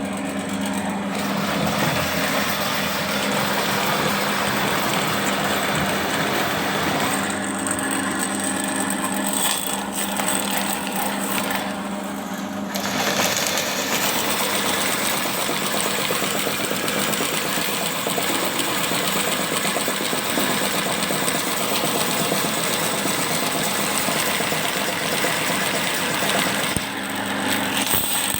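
Electric drain-cleaning machine running, its spiral steel cable spinning in a blocked drain pipe: a steady motor hum under a rough grinding noise that stays even in level.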